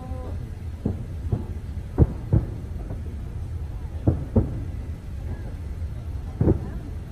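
Fireworks shells bursting, a string of about seven booms, several coming in quick pairs, over a steady low rumble.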